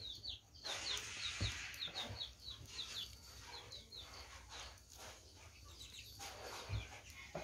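Chicks peeping in a rapid run of short, high, falling chirps, about three or four a second, that die away about halfway through, over a soft hiss.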